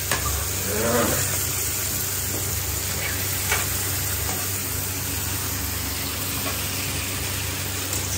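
Steady hiss of cooking on a gas stove, with a low hum under it. A metal spoon clinks against an aluminium pot twice, once right at the start and once about three and a half seconds in, as parboiled rice is scooped.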